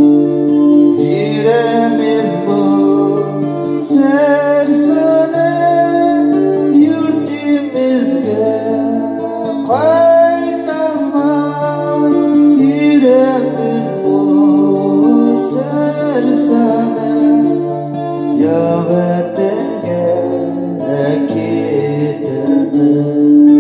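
Steel-string acoustic guitar fingerpicked, with a voice singing a melody over it in phrases.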